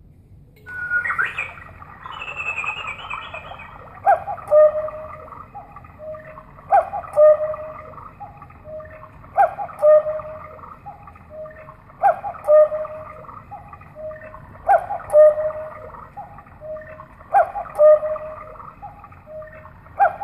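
Quartz cuckoo clock sounding twelve o'clock: a recorded two-note cuckoo call, each starting with a click, repeats about every two and a half seconds while the bird shows at its open door, with softer tones between the calls.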